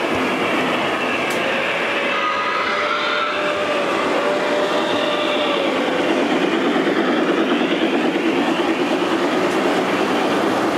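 O gauge model steam train rolling past on three-rail track: a steady clatter of wheels and motor that grows a little louder past the middle as the locomotive and cars pass close by.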